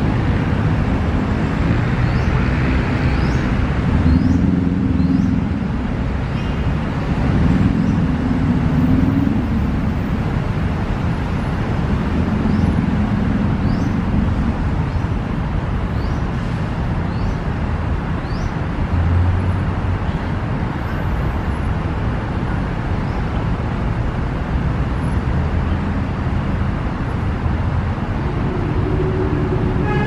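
Steady road-traffic rumble from passing cars and buses, swelling and easing. Faint, short high-pitched bird calls come through now and then.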